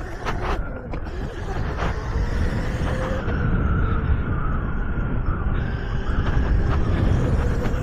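Electric pit bike being ridden over grass: heavy wind and riding rumble on the camera microphone, getting louder as it goes, over a faint steady motor whine.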